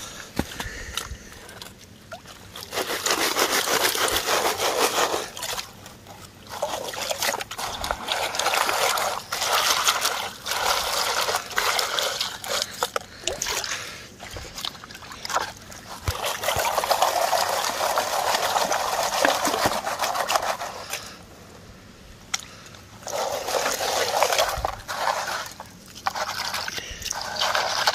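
Muddy water sloshing and splashing in a plastic gold pan held in a creek, in several bursts of a few seconds each, as the red clay and gravel in the pan are worked by hand.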